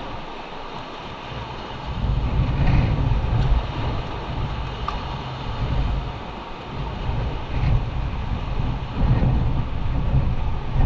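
Wind buffeting the microphone over the wash of surf on a rocky shore: a low, rumbling rush that swells and eases every few seconds.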